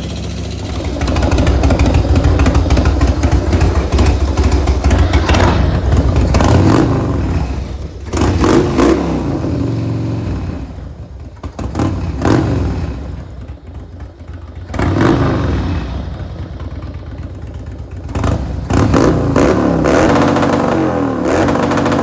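Harley-Davidson Twin Cam 88 V-twin with a Bassani exhaust, running and being revved about four times, the pitch falling back after each rev. There is a light knock in the running, which the owner traces to an out-of-adjustment pushrod in the rear cylinder.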